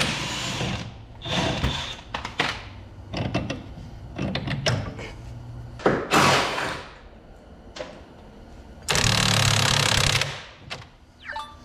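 Cordless impact wrench hammering in several short bursts as it undoes the front strut's mounting bolts, with short knocks between the bursts.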